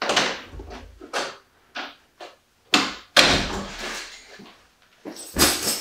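A house door opening and shutting with a few knocks and bumps, the loudest about three seconds in, mixed with the rustle and thud of a nylon duffel bag being picked up and handled.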